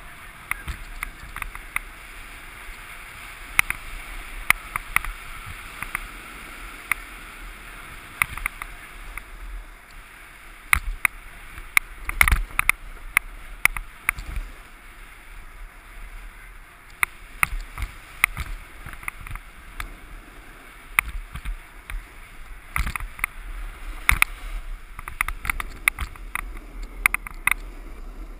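Snowboard sliding and carving over groomed, hard-packed snow, heard through a helmet-mounted GoPro: a steady scraping hiss from the base and edges, broken by frequent sharp clicks and knocks, the loudest about halfway through.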